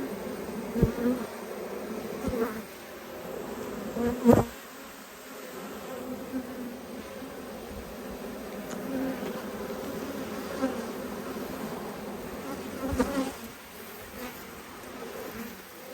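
Honeybees swarming in the air around an open hive, a steady loud buzz of many flying bees from a cranky colony disturbed by smoke. A few sharp knocks cut through, the loudest about four seconds in.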